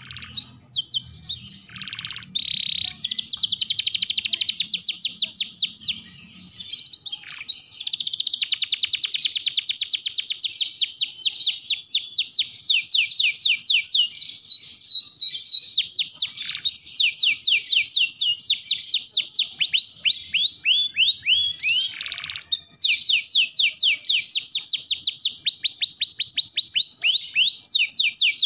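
Domestic canary singing a long, continuous song of very fast, high trills, with only a few short breaks between phrases.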